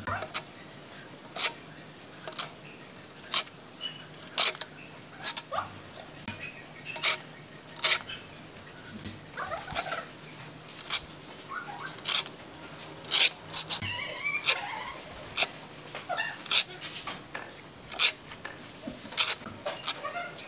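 A thin metal trowel blade clicking and scraping against damp cement as vertical ribs are cut and shaped, in short sharp ticks about once a second.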